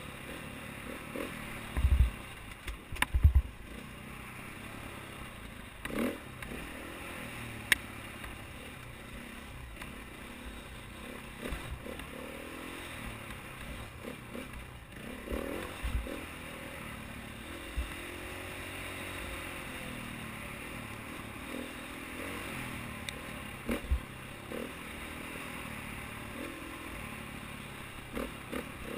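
KTM 450 XC-W dirt bike's single-cylinder four-stroke engine running at changing revs while riding rough singletrack, with scattered knocks and clatter as the bike hits bumps; the loudest knocks come about two and three seconds in.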